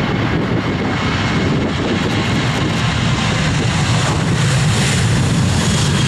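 Airliner's engines running loud and steady, a rumble with hiss on top that swells a little about four seconds in.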